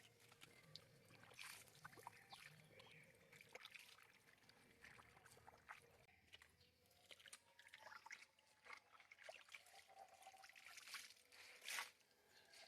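Faint water sloshing and trickling, with many small irregular splashes and clicks.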